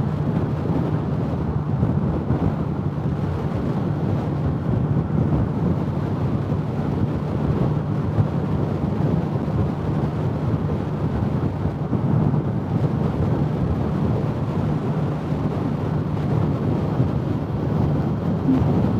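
Wind rushing over a microphone tucked in a motorcycle helmet's cheek pad at highway speed, with the motorcycle engine's steady drone underneath.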